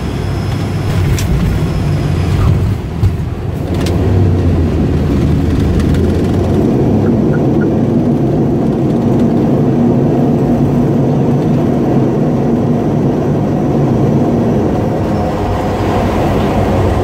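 Cockpit noise of an ATR 72-600 on landing: the twin Pratt & Whitney PW127 turboprops and six-blade propellers give a steady low hum and rumble. Two short knocks come in the first few seconds as the airliner touches down, and the noise then grows louder about four seconds in and stays steady through the landing roll.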